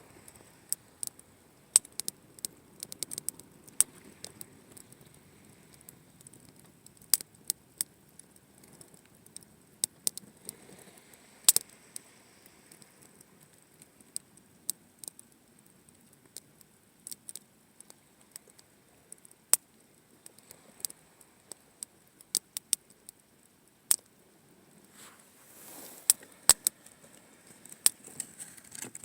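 Wood campfire crackling, with many sharp, irregular pops and snaps over a low hiss of burning.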